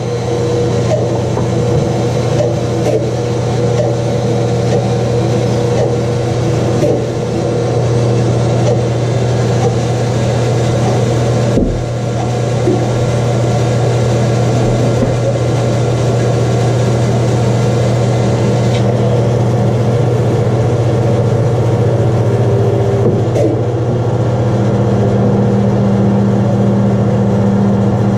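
Rikon bandsaw running, a steady machine hum. About three-quarters of the way through a second, higher steady tone joins it.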